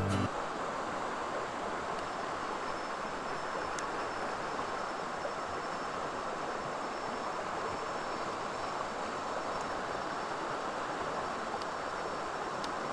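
Steady rush of a rocky stream running over rapids, with a few faint ticks.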